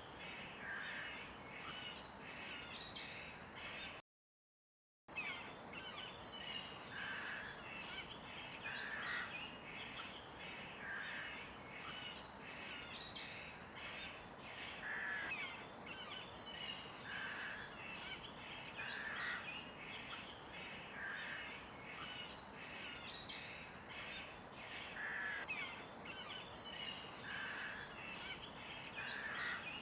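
A dense chorus of many small birds chirping and trilling together, with a lower call repeating about every two seconds. The sound cuts out completely for about a second, some four seconds in.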